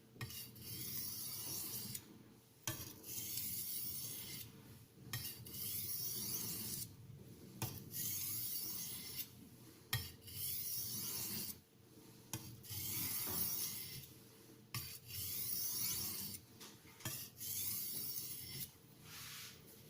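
Knife blade of 14110 steel stroked back and forth over a fine 6000-grit (JIS) Haidu aluminium oxide sharpening stone, polishing the edge: a series of hissing, scraping strokes, each about one to two seconds long with short pauses between them.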